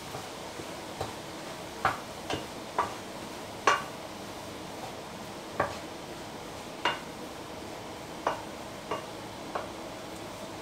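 A wooden spatula stirring a stew in a pan, knocking against the pan in about ten irregular clacks over a steady hiss.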